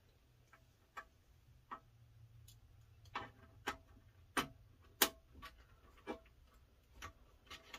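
Irregular small clicks and knocks of a tumbler press's heating-element cable plug being worked into its socket on the press body, the loudest click about five seconds in.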